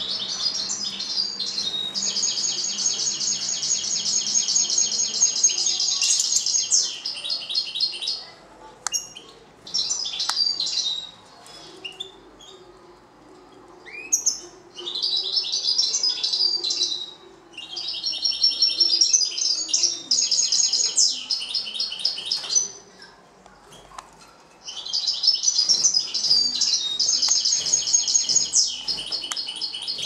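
Caged European goldfinches singing: bouts of fast, high twittering song several seconds long, broken by short pauses.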